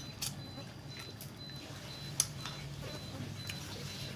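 Quiet eating by hand: small scattered clicks and smacks of fingers picking at grilled fish and chewing, the sharpest about halfway through. Behind it a low steady hum and a faint high chirp repeating several times a second.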